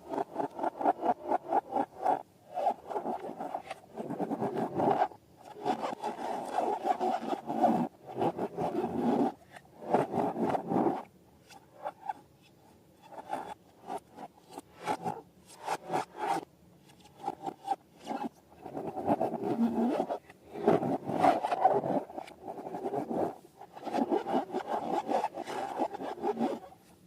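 Repeated bursts of rubbing and scraping, each a second or two long with short pauses between: rubber balloons and slime being handled and squeezed.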